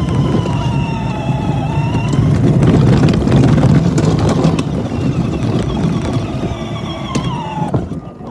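Child's battery-powered ride-on toy car driving: its electric motor and gearbox give a whine that dips and rises with speed over a steady rumble of plastic wheels on the ground. The whine falls and the sound drops off near the end.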